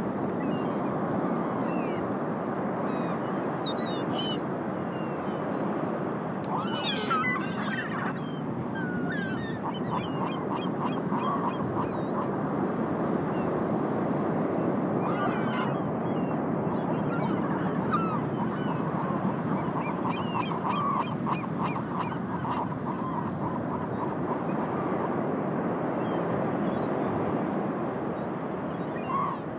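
A flock of seagulls calling over a steady rush of wind and surf: scattered squawks, a louder burst of calls about seven seconds in, and runs of quick repeated cackling notes.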